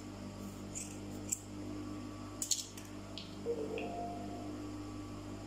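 Dressmaking shears snipping through woven fabric, a few short cuts in the first two and a half seconds, trimming the excess down to a one-centimetre allowance, then the fabric being handled, over a steady low hum.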